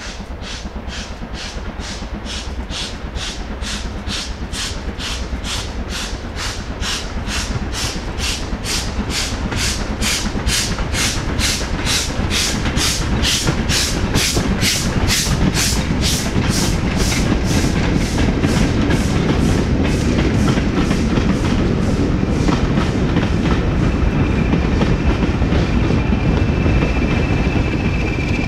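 Steam locomotive working a freight train, its exhaust beating evenly at about two beats a second and growing louder as it approaches, then the rumble and clatter of the wagons rolling past. A thin steady high tone joins over the last few seconds.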